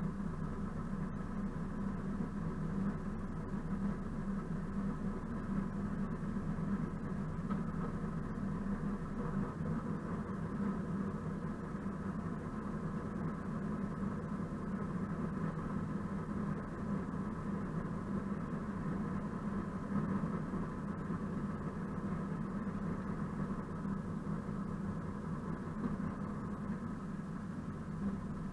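Class 742 diesel-electric locomotive under way, its ČKD six-cylinder diesel engine running steadily, heard muffled from outside on the hood walkway.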